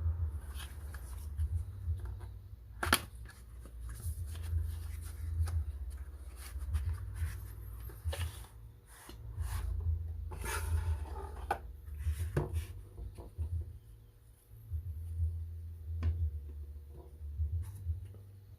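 Handling noises from unpacking an electric soldering iron: scattered clicks, taps and rustling of the packaging over a steady low rumble, with a louder rustle about ten seconds in.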